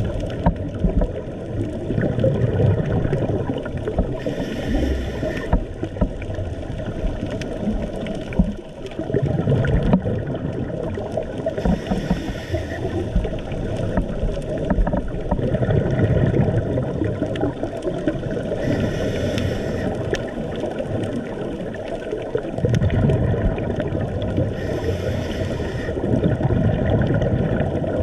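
Scuba diver's regulator breathing heard underwater: four bursts of exhaled bubbles, about every six to seven seconds, over a steady low rumble of water against the camera.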